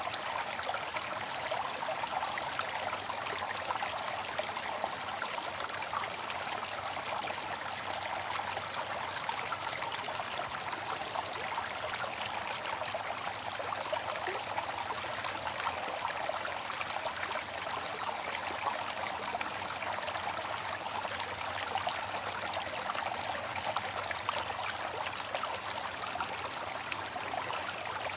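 Water fountain splashing and trickling steadily, a continuous bright patter of falling water.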